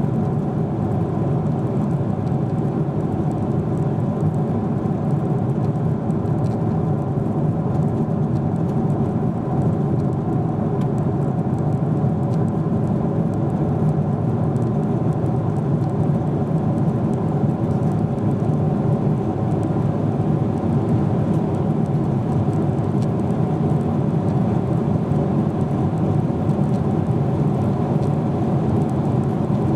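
Steady in-flight cabin noise of a Boeing 747-8 Intercontinental heard from a window seat beside the wing: the deep rush of air and the drone of its General Electric GEnx-2B turbofans, with a faint steady hum running through it.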